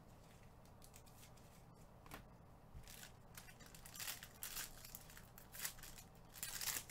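Foil trading-card pack wrapper crinkling and tearing as gloved hands open it, in short rustling bursts that start about three seconds in.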